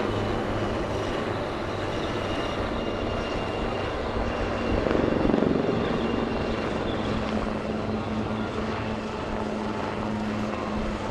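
HAL Dhruv helicopters in flight, their rotors and turbine engines giving a steady low thrum with a constant hum. The sound swells about five seconds in as one passes closer.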